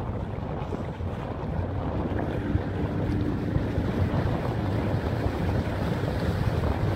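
Wind buffeting the microphone on open water: a steady low rumble, with water sloshing under it.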